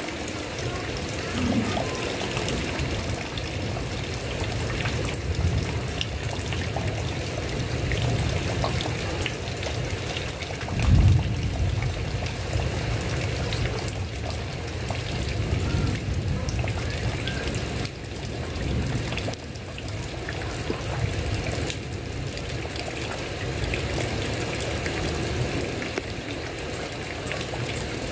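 Heavy rain falling steadily, with a low rumble of thunder underneath. A louder roll of thunder comes about eleven seconds in.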